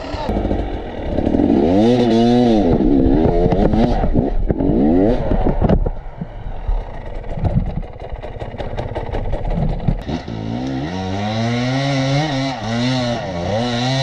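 Dirt bike engine revved in repeated bursts while the bike is worked over rocks. There is a quieter stretch of rapid clattering in the middle, then the engine runs up again near the end.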